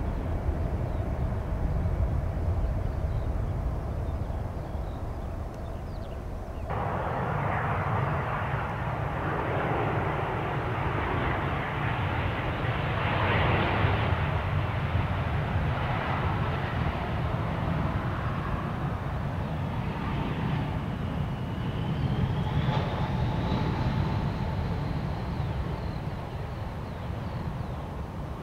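Airplane engines heard outdoors: a broad rush over a low rumble that comes in abruptly about seven seconds in. Later a high whine rises in pitch and then holds steady.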